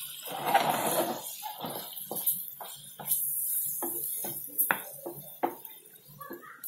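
Wooden spatula stirring shrimp in a nonstick frying pan, knocking and scraping against the pan in short, irregular strokes several times a second.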